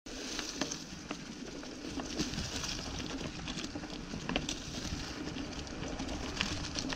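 Mountain bike rolling along a leaf-covered dirt singletrack: tyres running over dry fallen leaves and earth, with irregular clicks and rattles throughout.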